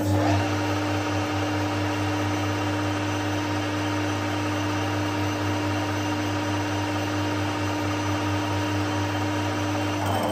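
Harrison 140 lathe running with its spindle engaged: a steady mechanical whir from the belt drive and change-gear train over a constant motor hum, starting suddenly right at the start and dying away at the end.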